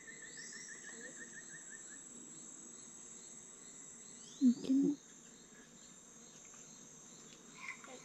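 Steady high-pitched drone of forest insects, with a rapid pulsing trill that stops about two seconds in and two short rising chirps. There is a brief, louder low sound about four and a half seconds in.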